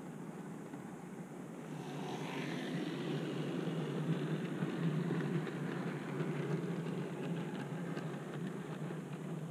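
OO gauge model train running along the track, heard from a camera riding on it: a steady rumble of the motor and wheels on the rails. The sound grows louder and brighter from about two seconds in, then eases slightly towards the end.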